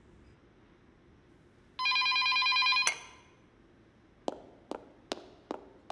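Landline telephone giving one trilling electronic ring about a second long, then hard-soled footsteps on a wooden floor, about five quick steps, as someone hurries to answer it.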